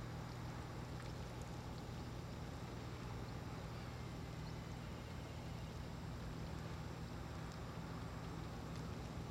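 Steady low drone of an engine running, unchanging throughout, over a faint even hiss.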